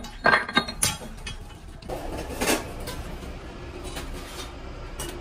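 Metal dumbbell parts clinking and clanking against a steel press die, with several sharp strikes in the first second and a short louder scrape about two seconds in, over a steady factory machine hum.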